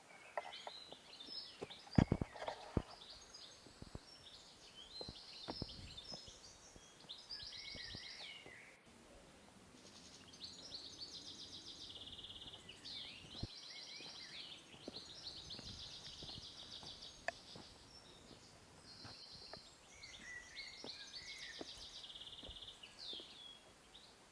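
Forest birds singing repeated trilled and chirping phrases throughout. A few sharp knocks from footsteps and trekking poles on rock come in the first three seconds.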